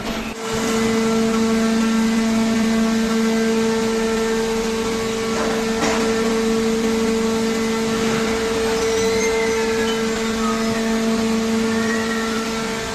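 Forging-shop machinery running with a steady, loud mechanical hum and drone, holding one low whine throughout, with a brief dip just after the start and faint short squeals later on.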